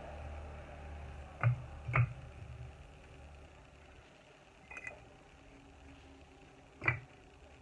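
Fired clay bricks clinking sharply against each other as they are picked up from a pile and stacked. There are four clinks: two half a second apart about a second and a half in, a fainter one near five seconds and another near seven seconds.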